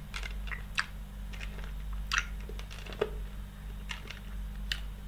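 Mouth sounds of a Halls cola-flavoured hard cough lozenge being sucked: scattered small wet clicks and smacks as the candy moves against the teeth and tongue.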